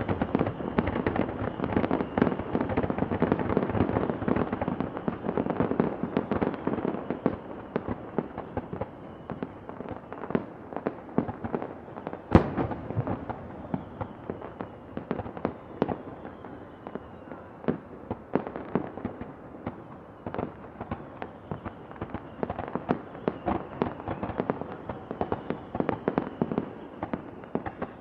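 Distant fireworks display: a dense run of medium and large bursts with crackle and echo, thickest over the first several seconds, then thinning to scattered bangs, with one sharp, loud bang about twelve seconds in.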